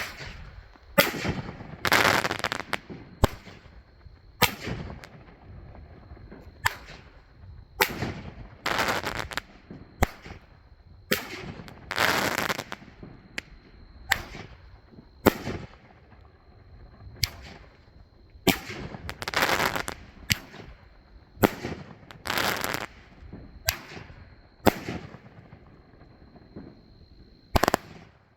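A 500 g firework cake (Magnus Fireworks Firestorm) firing its shots in an irregular string about a second apart. Each shot is a sharp bang, and several are followed by about a second of crackling as the effects break.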